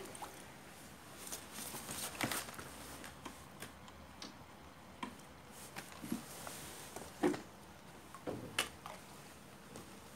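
A few scattered short clicks and knocks against a quiet background, the loudest about seven seconds in and again shortly after.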